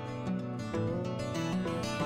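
Background music with plucked string instruments and a steady run of notes.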